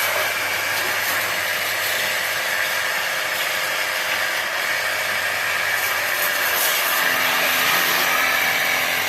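Ecosen portable jet cleaner running, its motor pumping a steady, strong jet of water through the focused-spray nozzle. A low hum from the pump joins about seven seconds in.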